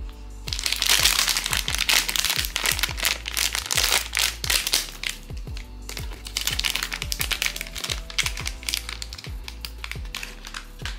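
Packaging being crinkled and handled in a series of dense, irregular crackles over background music with a steady beat.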